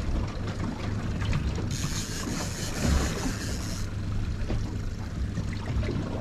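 Boat motor running with a steady low hum, and a rushing hiss from about two to four seconds in.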